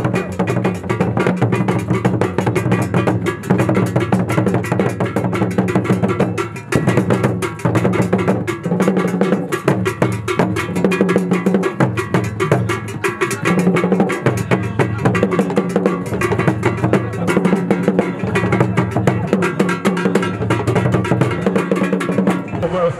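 Traditional Ghanaian drum ensemble playing dance music: several drums in a dense, driving rhythm, with a steady clicking pattern on top.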